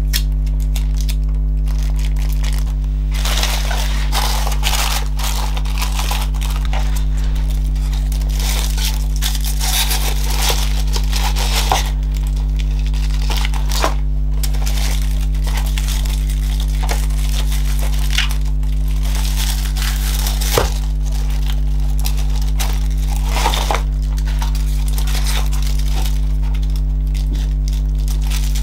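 Tissue paper and sheer organza gift bags crinkling as they are handled, with occasional sharp clicks and rustles. A steady low electrical hum runs underneath.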